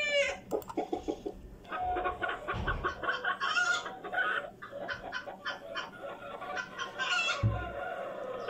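Flock of Brahma chickens clucking, many short clucks and calls overlapping one another. A long drawn-out call trails off at the very start, and two low thumps come about two and a half seconds in and near the end.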